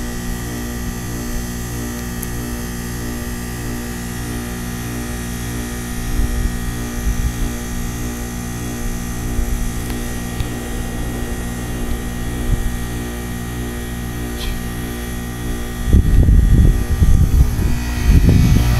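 Goodman heat pump outdoor unit running in defrost, its compressor humming steadily with a slight pulsing. Loud low rumbling bursts come in near the end.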